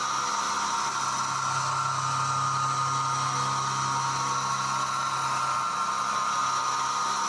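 Syil X7 CNC milling machine running, its spindle giving a steady high whine over a low hum.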